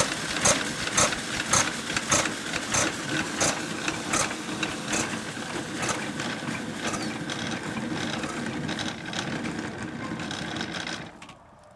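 Lorenz stationary engine and its belt-driven grain crusher running down after being shut off: a regular clack about twice a second that slowly spreads out and fades, then stops about eleven seconds in.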